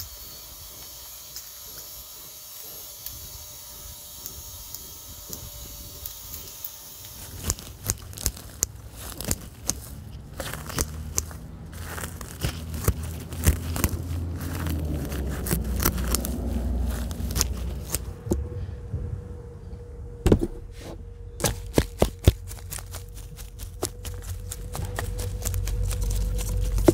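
Dry grass and weeds rustling, tearing and crackling as they are pulled up by gloved hands and scraped with a metal garden rake, with many sharp clicks and scrapes. For the first several seconds there is only a soft steady hiss, and a faint steady hum comes in during the second half.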